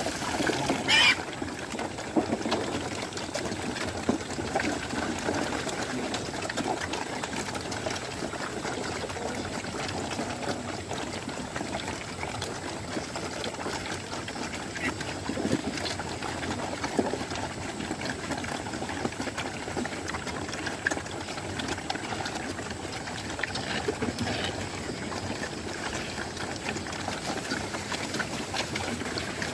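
Water running and splashing steadily, with scattered small knocks.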